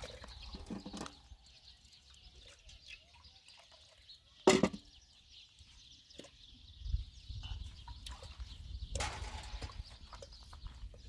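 Dishes being washed by hand: faint clinks and rubbing of metal pots and a kettle in water, with one sudden loud knock about four and a half seconds in and a short scraping splash about nine seconds in. A low rumble sits under the second half.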